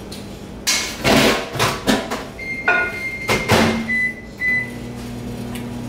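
Microwave oven being set going: the door clatters open and shut, a few keypad beeps sound, then the oven starts running with a steady low hum, heating a bowl of butter to melt it.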